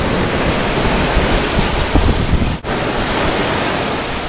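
Wind buffeting the microphone over the steady wash of sea surf on a beach, with the sound cutting out for an instant about two and a half seconds in.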